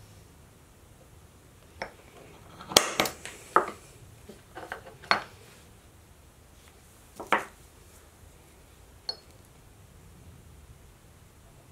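Small steel tools and fasteners clinking and knocking as they are picked up and set down against an aluminium bar and the bench: a quick cluster of sharp clinks about a quarter of the way in, then a few single ones, the last with a short ring.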